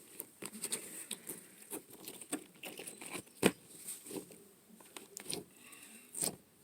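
Slime being squished and worked by hand: irregular small sticky clicks and pops, with one sharper pop about three and a half seconds in.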